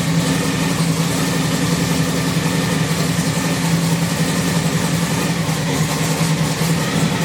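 Race car engine running at a steady speed, a loud, even drone with no change in pitch.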